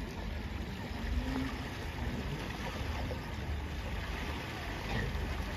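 Steady rush of river water with splashing as people wade through the shallow current, carrying a low rumble.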